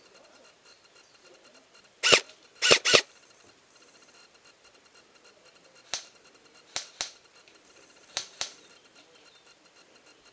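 Airsoft gun shots: three loud, sharp shots in quick succession about two seconds in, then five fainter shots, one followed by two pairs, a few seconds later.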